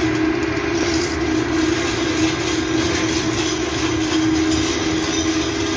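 Steady, loud drone of ship engine-room machinery: one constant humming tone over a low rumble and hiss.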